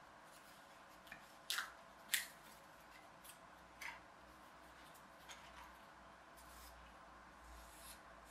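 About half a dozen short, sharp clicks and snips from cutting and handling thin balsa strips for a model wing frame. The loudest comes about two seconds in.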